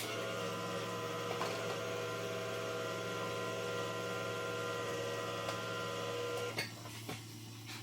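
Electric can opener motor running steadily as it cuts around a can lid, stopping about six and a half seconds in.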